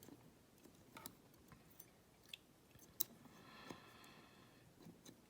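Faint, scattered metallic clicks and scrapes of a wire pick and tension wire working inside a lever padlock, the sharpest click about three seconds in.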